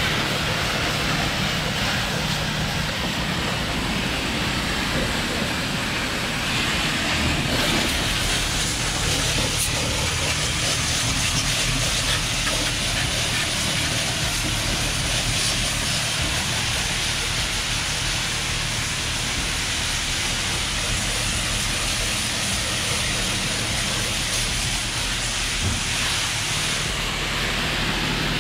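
Car wash pressure wand spraying water onto a car's engine bay: a steady hiss of spray that strengthens about seven seconds in and eases near the end, over a steady low hum.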